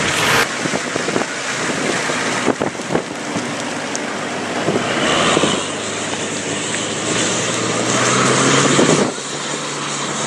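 Nissan Patrol Y60 turbodiesel engine working under load on a muddy hill climb, its revs rising and its sound building, then easing off about nine seconds in.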